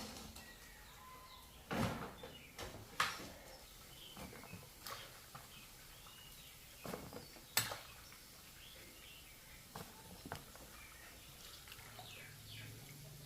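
Irregular sharp knocks and clatters, a handful spread over several seconds, with faint bird chirps between them.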